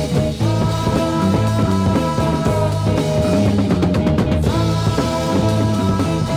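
Early-1970s heavy psychedelic rock, an instrumental passage: sustained chords held over a moving bass line and drums. The chord is struck anew about half a second in and again just before the five-second mark.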